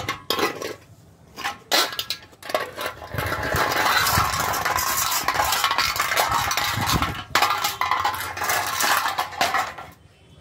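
A small metal can clattering and scraping across concrete as a puppy pushes and drags it: a few separate clinks at first, then several seconds of continuous rattling scrape that stops near the end.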